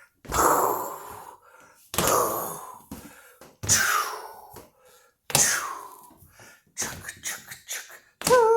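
Four heavy stomping footsteps about a second and a half apart, each a sudden hit that fades away, followed near the end by several quicker, lighter steps.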